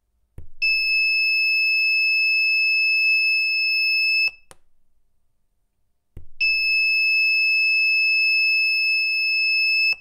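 Piezo buzzer of a homemade earthquake-alarm circuit sounding a steady, high-pitched beep twice, each time for about three and a half seconds. Each beep follows a light tap that sets off its spring-and-steel-ball vibration sensor, and each stops abruptly with a click.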